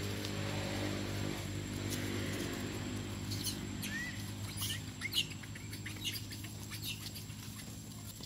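Young long-tailed macaques giving short, high squeaks and chirps, scattered from about three seconds in, over a low steady hum that fades during the first few seconds.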